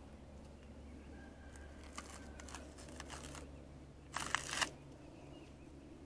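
Faint steady low hum with a few soft clicks, and about four seconds in a short scraping rustle, as a man walks up to a poplar log on the sawmill bed and puts his hands on its bark.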